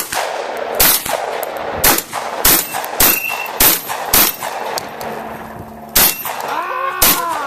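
Shotgun fired in a rapid string, about nine shots mostly half a second to a second apart, with a pause of nearly two seconds before the last two.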